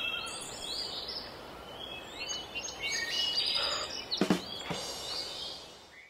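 Small birds chirping over a steady outdoor hiss, with two short sharp clicks a little past four seconds in; the sound fades out at the end.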